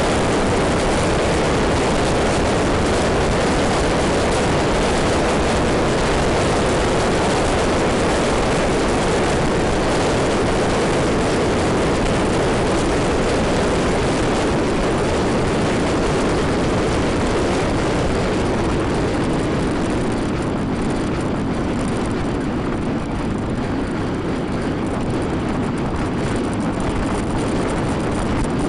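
Steady wind rush and engine and road noise of a maxi-scooter riding at speed, heard from the rider's position. The hiss thins out somewhat about twenty seconds in.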